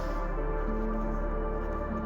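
Background ambient music: slow held synth tones over a steady low drone, the notes changing about once a second.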